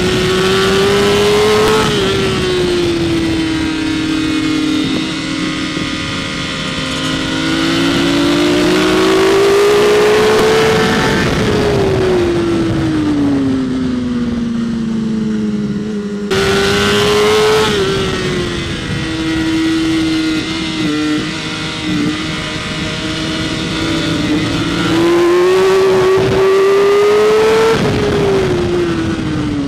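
BMW S1000RR inline-four engine heard onboard at track speed, its revs climbing slowly and then dropping away through the straights and corners, over a steady rush of wind and road noise. The sound breaks off abruptly about halfway through, then the engine picks up again high in the revs.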